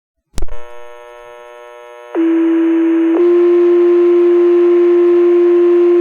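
Fire dispatch radio paging tones: after a key-up click and a faint hum, a low tone sounds for about a second, then a slightly higher tone is held for about three seconds. This two-tone sequential page alerts the volunteer firefighters' pagers to a call.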